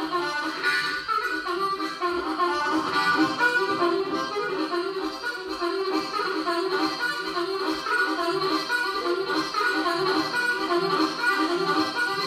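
Harmonica played solo through a microphone, a steady fast rhythmic chugging pattern of short repeated notes in the style of a harmonica train imitation.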